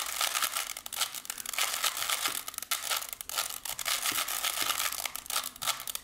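A 3x3 Rubik's Cube turned quickly by hand: a fast, continuous clatter of plastic layers clicking and scraping as they rotate.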